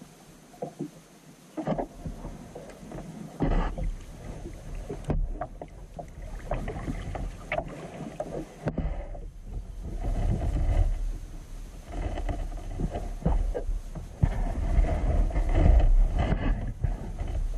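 Kayak paddle strokes dipping and splashing in calm water, irregular and every second or two. From about three seconds in, a low rumble of wind on the microphone comes and goes underneath.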